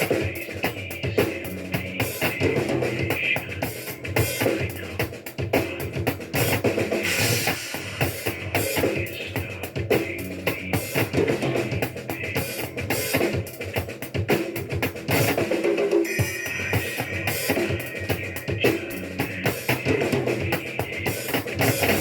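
Music with a prominent drum kit beat: kick, snare and rimshot hits in a steady rhythm.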